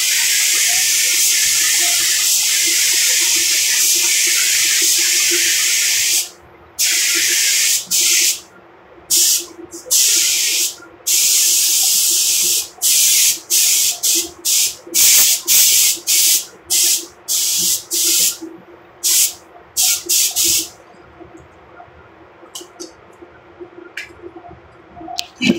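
Compressed-air paint spray gun spraying paint. It hisses continuously for about six seconds, then gives many short hissing bursts as the trigger is pulled and released, and stops about 21 seconds in.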